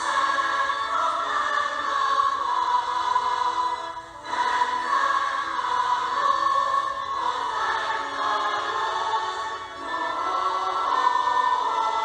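Choir singing a hymn in sustained phrases, with a short break between phrases about four seconds in.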